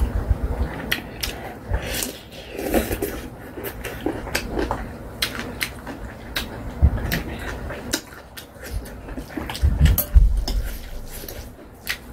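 Metal chopsticks and a spoon clinking and scraping against a glass bowl as stir-fried ramen noodles are mixed and picked up, in scattered sharp clicks, with a couple of dull thumps about seven and ten seconds in.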